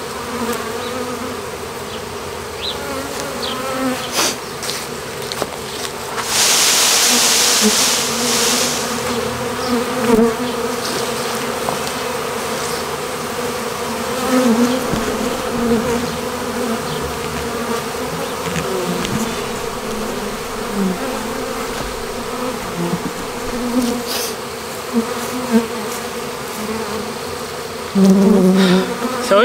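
A swarm of honey bees buzzing steadily as they crawl and fly into the entrance of a new hive box. A brief loud rush of hiss cuts in about six seconds in and lasts a few seconds.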